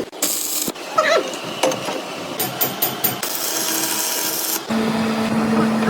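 Metalworking machine and tool noises in short clips cut together: clicks, a brief squeal of metal, then a steady machine hum starting near the end.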